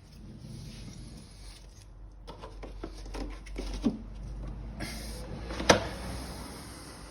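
Clicks and knocks of vacuum cleaner parts being handled during reassembly after a motor replacement, with a sharp snap near the end, over a low steady hum.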